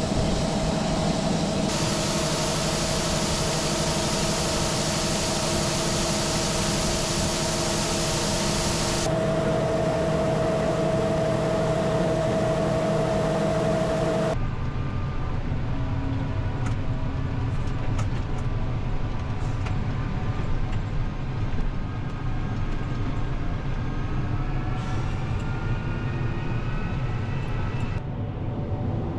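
Heavy diesel engines of corn-harvest machinery running steadily, heard across several cuts between different machines and viewpoints. Near the end the engine pitch slowly rises.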